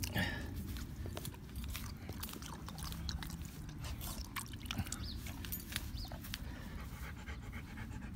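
German Shepherd panting, with scattered small wet clicks as water is rubbed by hand into its neck fur.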